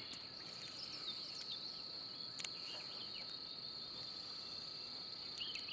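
Insects trilling in one steady high-pitched drone, with short high chirps scattered over it and a single sharp click about two and a half seconds in.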